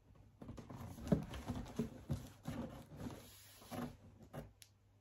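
Cardboard box scraping and rustling, with a string of irregular dull knocks, as a Ninja Foodi grill is lifted out of its packaging and handled.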